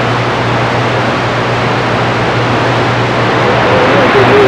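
CB radio receiver on an open channel putting out loud, steady static hiss with a low hum under it. Near the end a faint voice starts coming through the noise.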